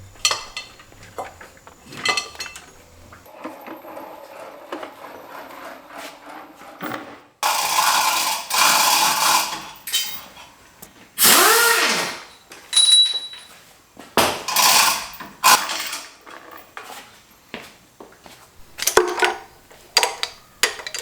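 Metal tools and engine parts of a 283 small-block Chevy V8 clanking and knocking as it is taken apart. There are many sharp knocks and several louder noisy stretches of a second or two each, one with a pitch that rises and falls.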